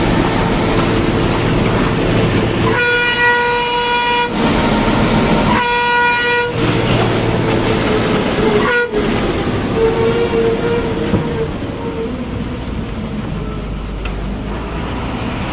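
Bus engine and road noise inside the bus as it runs down a hill road, with two horn blasts, a longer one about three seconds in and a shorter one about six seconds in.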